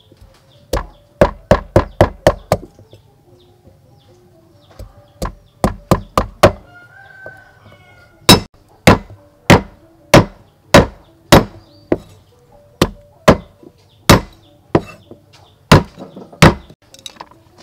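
A steel cleaver chopping a roasted root on a thick wooden chopping board, giving sharp knocks. They come in a quick run of about seven, then about six, then a steadier run of about thirteen strokes a little over half a second apart.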